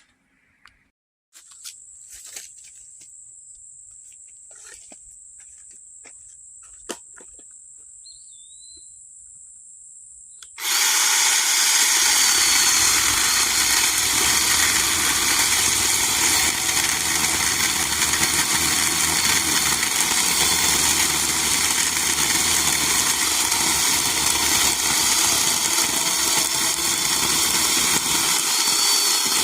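Craftsman 20V 10-inch cordless chainsaw running and cutting through a hard, seasoned log, loud and steady, starting suddenly about ten seconds in. Before it starts, a faint steady high-pitched tone with a few clicks.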